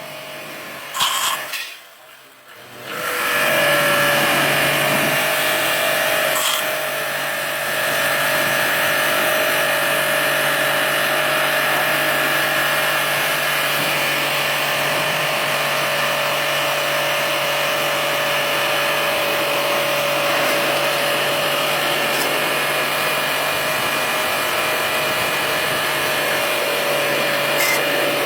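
An electric motor-driven machine starts up about three seconds in and runs steadily: a rushing air noise over a constant low hum and a steady higher tone.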